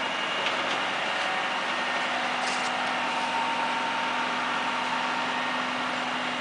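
Utility work trucks' engines idling with a steady, constant hum.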